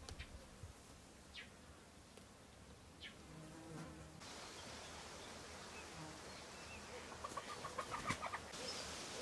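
Faint outdoor yard ambience: a buzzing insect passes a few times, with a few short faint bird chirps early on. Near the end there are soft short calls that fit a hen clucking.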